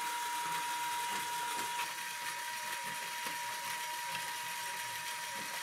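Motor-driven Lego Technic mechanism running: a steady high whine from the electric motor over the whirr and light ticking of plastic gears and the Reuleaux-triangle cam turning in its square frame.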